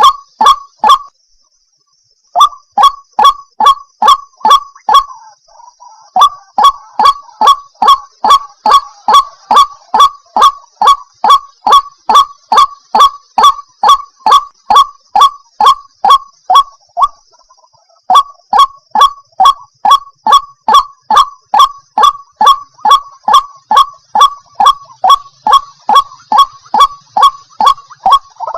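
Female white-breasted waterhen (ruak-ruak) calling: a long series of loud, evenly repeated honking notes, about three a second. The series breaks off briefly about a second in and again past the middle.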